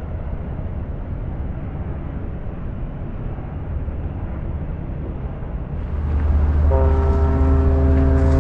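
Low steady rumble, then a bit over six seconds in a ship's horn starts sounding: one low, steady blast that carries on past the end.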